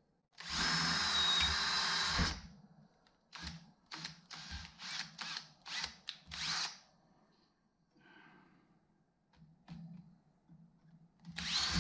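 Handheld power drill with a 5/32 in bit drilling out aluminum rivets: one steady run of about two seconds with a high whine, then a string of short trigger bursts about half a second apart, and a brief spin-up with a rising whine near the end.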